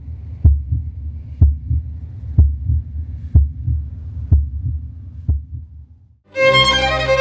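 A heartbeat sound effect: paired low thumps, a strong beat and a weaker one, about once a second, stopping about six seconds in. Just after, violin music begins.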